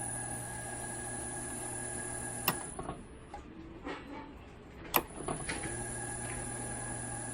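T-verter N2-405-H3 industrial inverter running under test, a steady electrical hum with a high, thin whine. A sharp click about two and a half seconds in, the hum and whine drop away, and with another click near five seconds in they come back.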